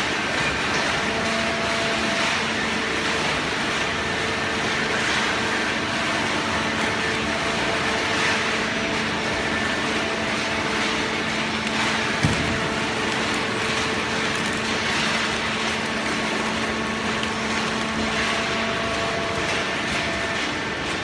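Hydraulic waste-paper baling press running: a steady mechanical drone with a held hum, and a single sharp knock about twelve seconds in.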